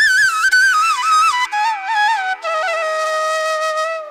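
Background music: a solo flute melody with quick ornaments that steps down in pitch and settles on a long low note, over a steady drone, fading out at the end.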